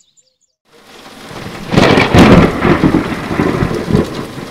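A thunderstorm: rain and a rumble of thunder fade in from silence about a second in and turn loud just before the two-second mark, rumbling and crackling.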